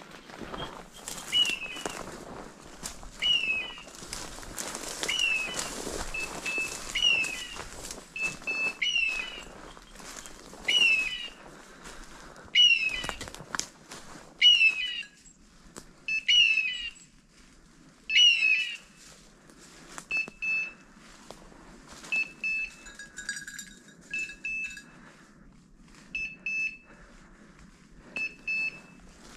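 Beeper collar on a hunting setter sounding its point signal: a falling electronic chirp about every two seconds, then from about twenty seconds in a shorter, flatter beep at the same pace, which tells the hunter the dog is standing on point. Footsteps crunch through dry bracken and leaf litter, mostly in the first half.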